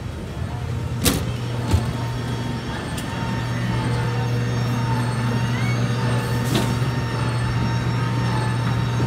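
Airport apron machinery noise: a steady low engine drone with a wavering high whine above it, growing a little louder about three seconds in. Two sharp knocks come about a second in.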